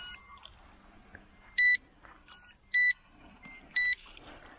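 Electronic carp-rod bite alarm beeping three times, short steady beeps about a second apart, with a fainter, lower-pitched beep from another alarm right at the start. The beeps signal line being drawn off the rods.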